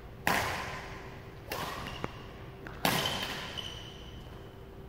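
Badminton rackets striking a shuttlecock three times, a bit over a second apart, in a rally. Each hit is a sharp crack that echoes around a gymnasium, with a faint ring after it.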